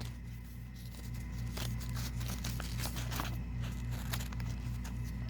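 Soft rustles and small clicks of paper and tape being handled and cut with scissors, over a steady low electrical hum that pulses evenly.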